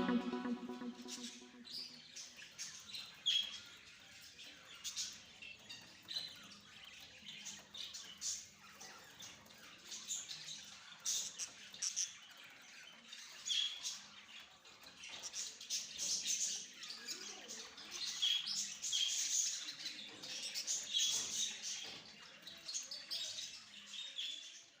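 Budgerigar chicks chirping: many short, high twittering calls coming in clusters, some louder, some faint.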